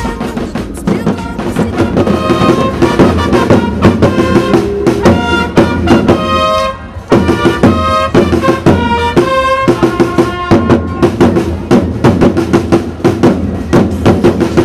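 Long straight herald trumpets sound a fanfare of held notes over fast, continuous drumming from a marching corps of side drums, with a short break about seven seconds in.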